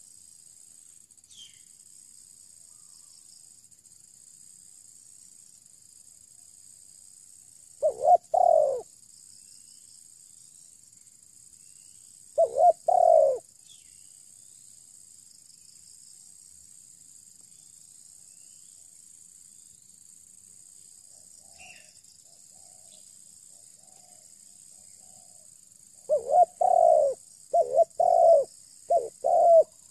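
Spotted dove cooing in low, loud phrases about 8 and 12 seconds in, then a quicker run of coos near the end. A steady faint high insect hiss runs underneath.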